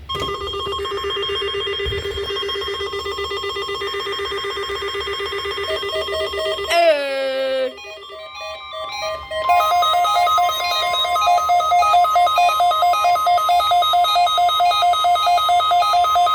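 Weather radio receivers going off for a NOAA weekly test alert. A buzzy pulsing alert tone ends in a falling glide about seven seconds in; then a Midland WR-100 weather radio sounds its alarm, a steady high tone under rapid two-note beeping at about four beeps a second.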